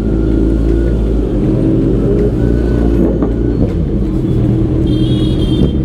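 Superbike engines running at a slow crawl, including a Kawasaki Z900 fitted with a full Arrow exhaust system, the note rising and falling a little with the throttle. A short high-pitched tone sounds near the end.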